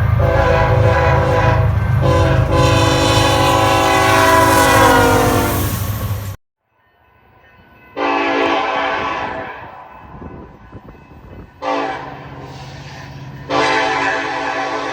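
Nathan K5LLA five-chime air horn on a BNSF diesel freight locomotive sounding a long blast over the rumble of the engine, sagging slightly in pitch before it cuts off abruptly about six seconds in. After a short gap come three more blasts: one that fades out, a brief one, and one still sounding at the end.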